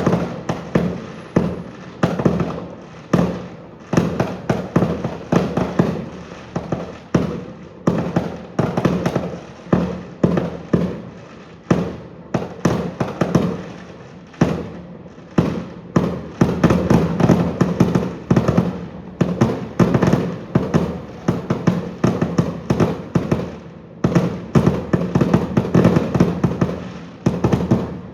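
Fireworks display: shells bursting in quick succession, a loud bang about once a second with rapid crackling between them.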